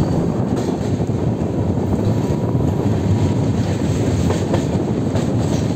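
Two passenger express trains running past each other on adjacent tracks. A steady rumble of coach wheels and bogies on the rails, with faint clicks of wheels over rail joints, is heard from the open door or window of one of the moving coaches.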